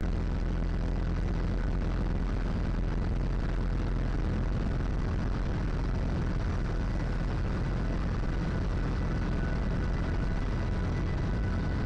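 Float plane's engine and propeller running, a loud steady noise heavy in the low end that starts abruptly.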